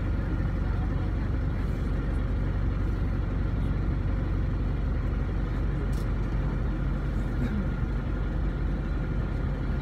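Canal tour boat's engine running with a steady low drone, heard on board as the boat cruises along.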